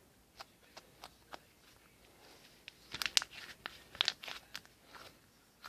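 Homemade slime squeezed and worked in the hands, giving scattered small pops and crackles, sparse at first and bunching together about three and four seconds in.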